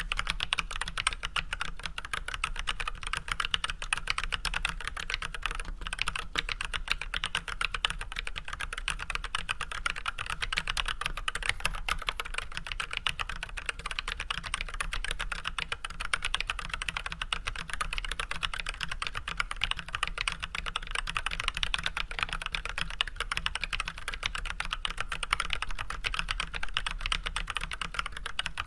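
Steady, fast typing on an Archon AK87 hot-swap mechanical keyboard fitted with unlubricated Everglide Red 67 g linear switches with switch films and white PBT keycaps: a dense, continuous run of keystroke clacks, broken by a momentary pause about six seconds in.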